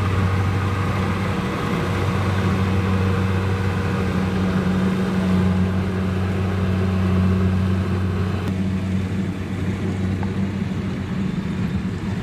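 Kubota DC-70 Plus combine harvester's diesel engine running steadily with a deep drone. A higher band of machinery noise drops away about eight and a half seconds in.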